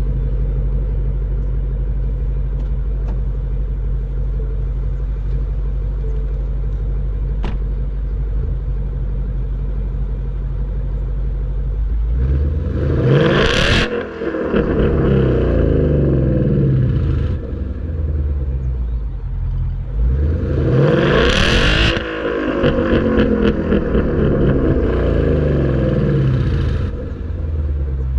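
2015 Ford Mustang GT's 5.0-litre V8 running at a steady low note, then revving hard about twelve seconds in, its pitch climbing and dropping at gear changes, with a second hard pull around twenty seconds in.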